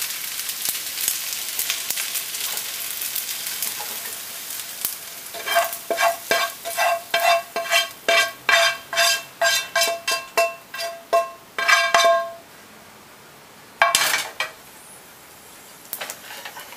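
Nonstick frying pan sizzling, the sizzle dying away as the pan comes off the heat. Then a spatula scrapes and knocks the stir-fried noodles out of the pan onto a plate, about three knocks a second for several seconds, each knock making the pan ring. One short clatter near the end.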